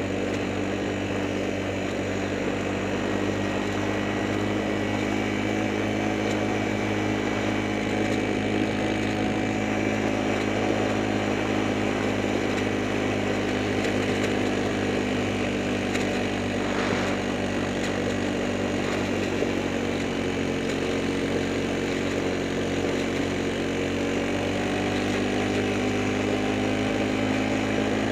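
Small engine of an off-road vehicle running steadily at moderate speed, its pitch dipping and rising slightly a little past the middle.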